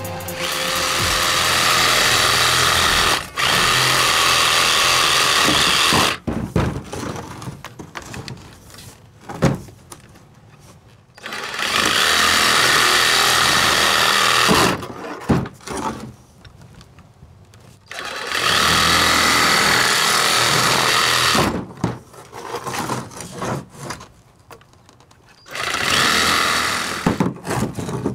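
Cordless power saw cutting through PVC pipe in several bursts of a few seconds each, with quieter knocks and scrapes of the pipe being handled between cuts.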